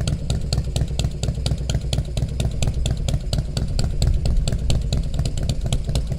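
Harley-Davidson Road King Custom's V-twin engine idling steadily, with an even, rapid pulse.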